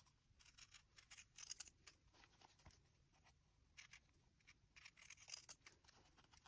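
Faint snips of pinking shears cutting through fabric seam allowance, in two short runs of quick clicks, about a second in and again near the end.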